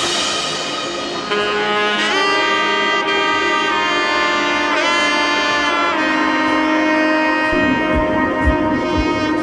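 Background music: a slow melody of long held notes, with a low drum beat coming in near the end.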